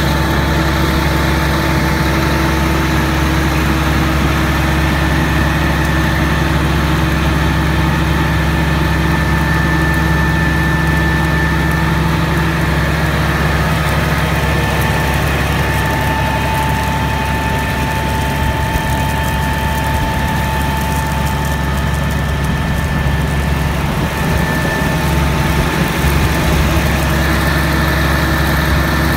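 Tractor engine running steadily, heard from inside the cab, with a constant low drone and a thin steady whine above it.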